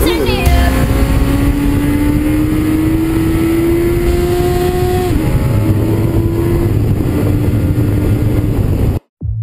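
Suzuki sport motorcycle's engine accelerating hard, its pitch rising steadily, with a short dip at a gear change about five seconds in, over onboard wind rush. The sound cuts off suddenly near the end.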